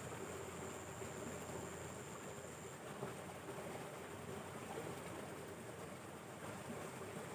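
Faint, steady outdoor background noise with no distinct events, and a thin, high, steady tone that stops about three seconds in.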